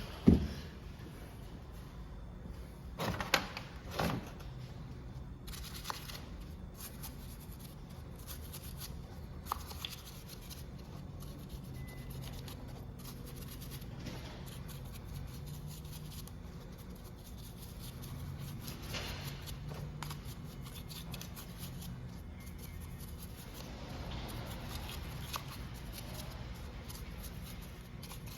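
A few scattered clicks and knocks, the loudest just after the start and a cluster about three to four seconds in, over a steady low hum.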